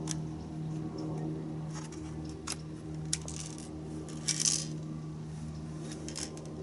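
Steel BBs rattling and clicking inside a Crosman 760 Pumpmaster air rifle as it is tilted and worked to feed them into the magazine: a few sharp clicks and two short rattles around the middle. A steady low hum runs underneath.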